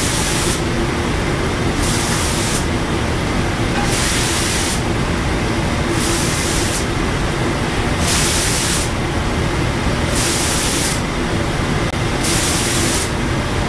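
Automatic spray guns on a cookware inner-coating line firing coating in regular hissing bursts, each just under a second long, about every two seconds as pots pass, over a steady machine noise.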